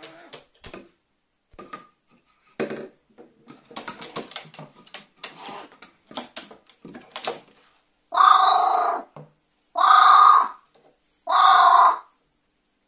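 Pet carrion crow handling a cardboard tube on a wooden table, a scatter of clicks and knocks from the tube and its bill. About eight seconds in, the crow gives three loud caws about a second and a half apart.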